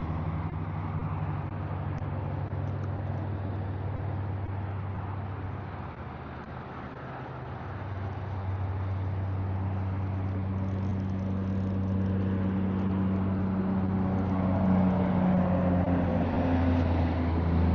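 A motor running steadily with a low hum that shifts slightly in pitch a few times.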